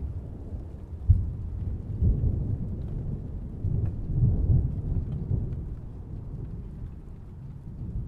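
Distant thunder rumbling low, with a sudden crack about a second in, swelling again around two and four seconds and dying away near the end.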